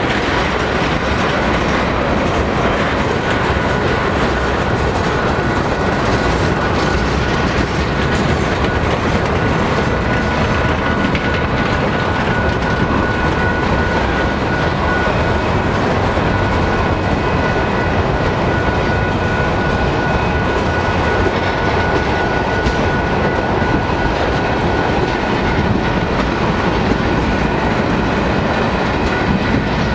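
Freight train of tank cars, boxcars and autoracks rolling past, a steady loud noise of steel wheels on rail. A thin steady high squeal runs through it from a few seconds in.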